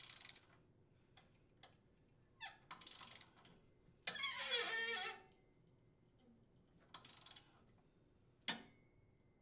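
Ratchet of a torque wrench clicking in short spells as the impeller's center bolt is snugged and torqued, the longest spell about four seconds in, with a few single clicks between.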